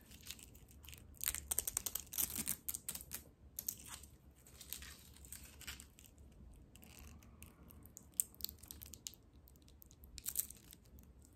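Protective plastic film being peeled off a gold-tone watch bracelet close to the microphone: a run of crackles and sharp clicks, busiest between about one and three seconds in and again near the end.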